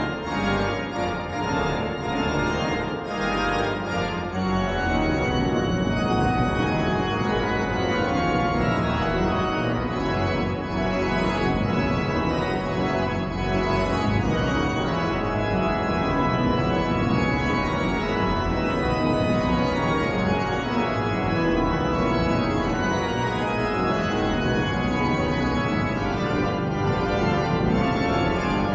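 Durham Cathedral's pipe organ playing at a steady loud level, with dense chords sounding across a wide range of pitches.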